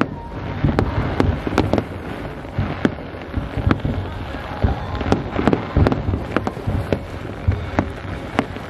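Aerial firework shells bursting in quick, irregular succession: many sharp bangs, several a second at times, over a continuous low rumble of overlapping bursts.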